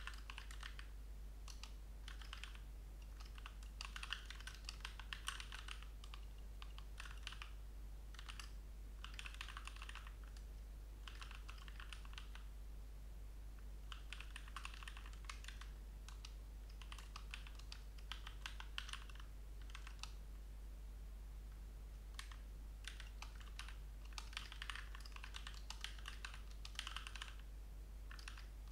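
Typing on a computer keyboard in bursts of rapid keystrokes with short pauses between them, over a steady low hum.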